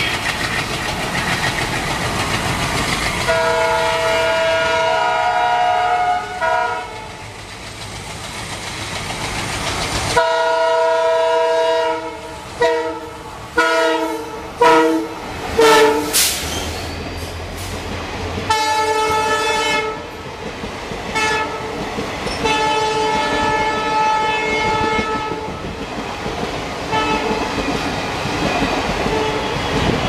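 EMD WDP4 diesel locomotive's multi-tone air horn honking over and over as it passes at speed: two long blasts, then a rapid string of short loud honks, then more blasts. Under it runs the steady rumble and wheel clatter of the passing trains.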